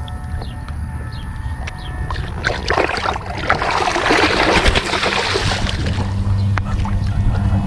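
Water splashing and sloshing, swelling to a longer rush of splashes from about two and a half to five seconds in, over a steady low wind rumble on the microphone.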